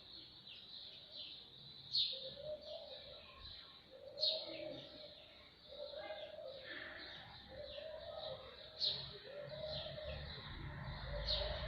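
Birds calling: short falling chirps repeat several times a second, with a sharper, louder chirp about every two seconds, over a low cooing that repeats about once a second.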